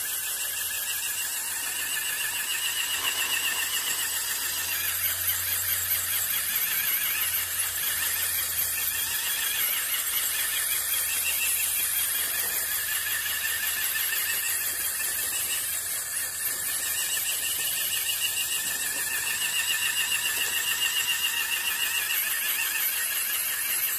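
High-pitched whine of the small electric motor and gearing of a converted Bruder RC tractor working a sweeper brush, the pitch drifting up and down as it drives, over a faint low hum.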